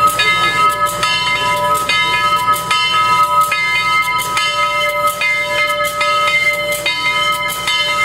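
Steam locomotive's bell ringing steadily, about one stroke every 0.8 seconds.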